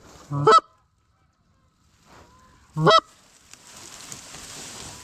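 Two loud Canada goose honks about two and a half seconds apart, each a short low note that breaks sharply upward into a higher honk.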